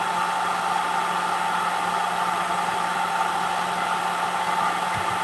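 Cat grooming dryer blowing steadily, a loud rush of air with a constant high whine and a low motor hum.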